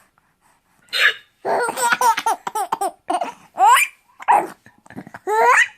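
A baby laughing in bursts, with hiccups among the laughs. After a quiet first second comes a short high burst, then a run of pitched laughs and rising squeals.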